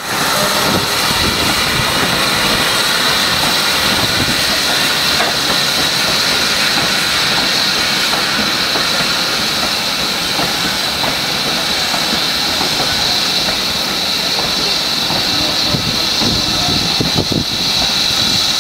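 Steam locomotive hauling a train of vintage wooden carriages past, with a steady hiss of steam over the clatter of the carriage wheels on the rails.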